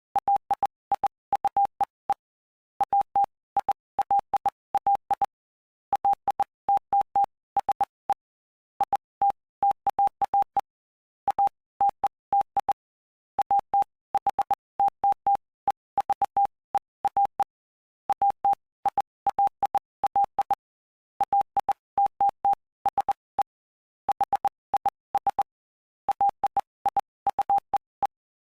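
Morse code: a single steady tone keyed on and off in short dots and longer dashes, grouped into letters and words with brief pauses between them, with a faint click at each start and stop. It is spelling out the text of the Gospel of Mark, chapter 8.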